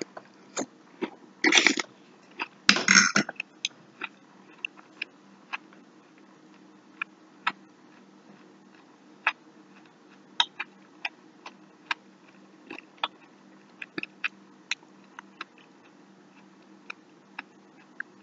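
A person chewing a mouthful of fried zucchini, with short wet mouth clicks and smacks scattered irregularly, one every second or so. Two louder noisy bursts come about one and a half and three seconds in, over a faint steady hum.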